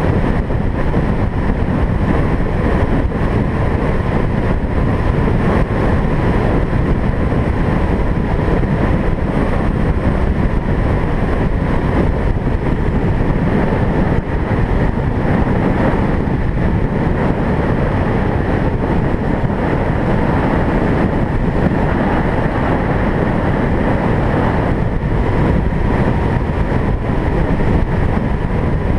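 Steady road noise of a car driving: engine and tyre noise, with a faint steady whine.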